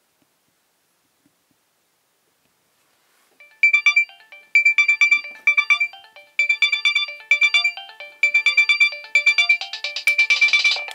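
Nokia 6820a mobile phone playing a synthesized ringtone melody. It starts about a third of the way in after near silence: short phrases of quick notes, about one a second, with a bright high note repeated throughout. It grows busier near the end.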